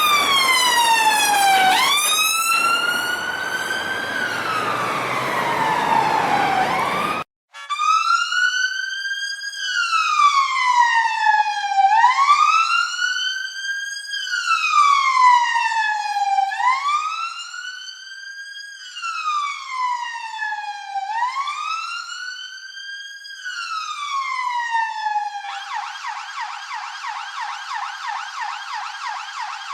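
Police sirens wailing, their pitch sweeping slowly up and down every couple of seconds. The first recording has a low rumble underneath; after a brief cut about a quarter of the way in, a cleaner wail follows. Near the end the siren switches to a fast, rapidly repeating yelp.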